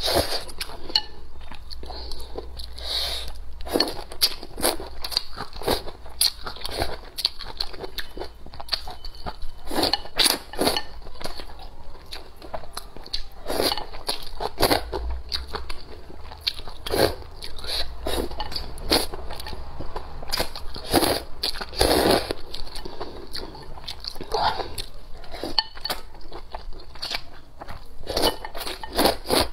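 A person slurping noodles and chewing, in short irregular bursts.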